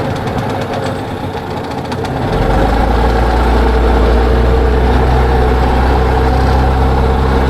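Outboard motor of a small flat-bottom boat running steadily; about two seconds in it grows louder, with a heavy low rumble added, as the boat picks up speed.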